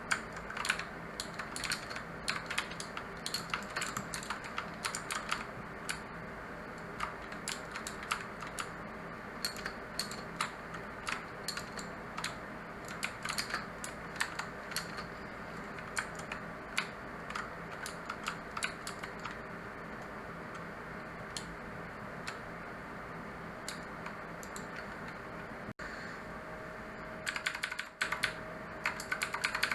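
Typing on a mechanical keyboard with clicky blue switches: a fast, irregular patter of keystrokes that thins out to scattered presses in the middle and picks up again in a quick flurry near the end.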